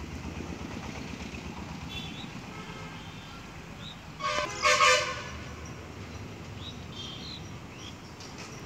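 A vehicle horn honks twice in quick succession about four seconds in, a short toot followed by a longer one, over a steady low background rumble.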